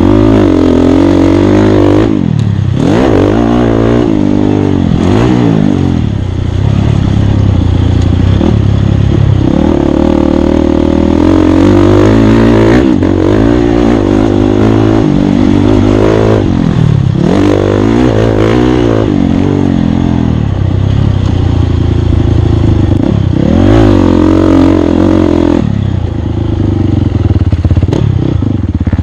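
Dirt bike engine revving hard and easing off over and over, its pitch climbing and dropping with throttle and gear changes, with occasional clattering knocks.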